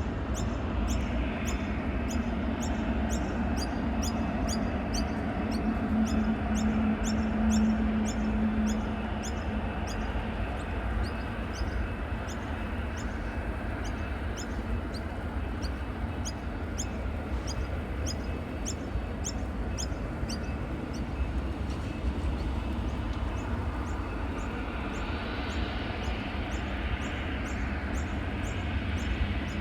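Jet airliner engines rumbling in the distance, with a low drone that swells and eases. Over it, a regular series of thin, high-pitched chirps about twice a second that fades out past the middle.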